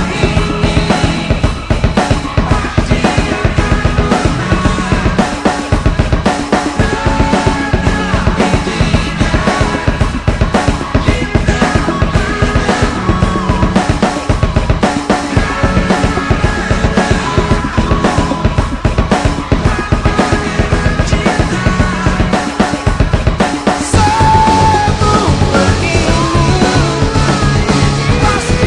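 Fast rock music with a driving drum kit, bass and guitar; the arrangement changes about two-thirds of the way in.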